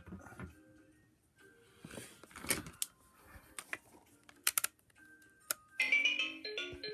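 Plastic clicks and handling of an Alphabet Pal electronic learning toy as its buttons are pressed, then, about six seconds in, the toy plays a short electronic tune of stepping beeped notes, the jingle that leads into its spoken greeting.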